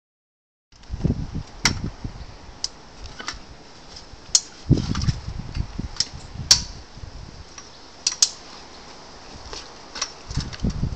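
Sharp metallic clicks and clanks of a folding velomobile's metal frame being handled and unfolded, the loudest about six and a half seconds in, with dull low rumbles between them.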